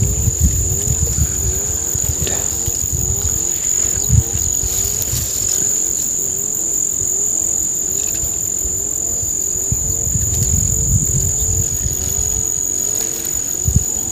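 A steady, high-pitched insect chorus from crickets or cicadas, with a lower call repeating at a regular pace beneath it. An uneven low rumble runs under both.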